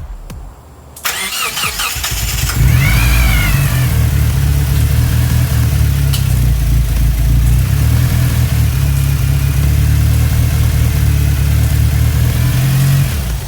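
Freshly built Mitsubishi 4G63 2.3-litre stroker four-cylinder at its first start: brief cranking about a second in, then it catches and runs loud and steady for about ten seconds before being shut off near the end.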